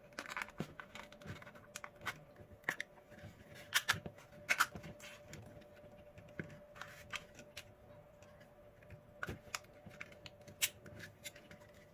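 Scattered crinkles, rustles and light taps of plastic heat-shrink film being handled and fitted over a three-cell lithium battery pack.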